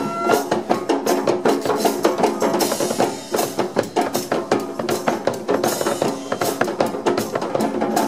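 Brass street band playing an instrumental interlude, with a bass drum and snare drum beating quickly under sustained horn and sousaphone notes.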